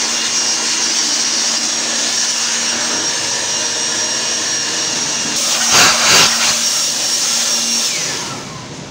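DeWalt handheld electric blower running steadily with a high motor whine, blowing dust out of a drive's circuit-board module. Two brief louder gusts come about six seconds in, and then it winds down near the end.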